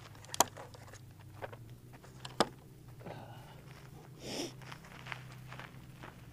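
Two sharp rifle shots about two seconds apart from an ArmaLite AR-15 in 5.56 mm, fired prone off a bipod, followed by a brief faint rustle.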